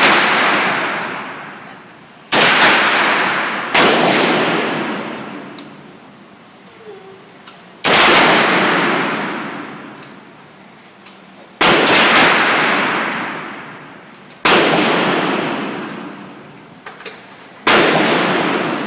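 Single gunshots at a shooting range, about seven of them spaced unevenly a second and a half to four seconds apart. Each shot is followed by a long ringing echo that dies away over a couple of seconds.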